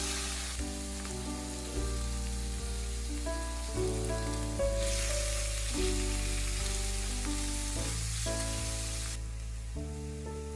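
Chicken pieces sizzling in hot oil in a stainless-steel frying pan, the sizzle starting as they drop in and easing near the end. Background music plays under it.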